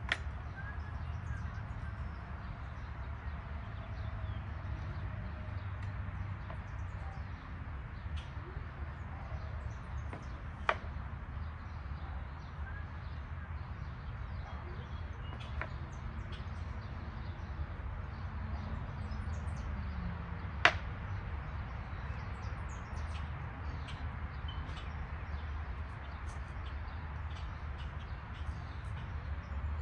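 Outdoor background noise: a steady low rumble with a few scattered sharp clicks or knocks, the loudest about two-thirds of the way through.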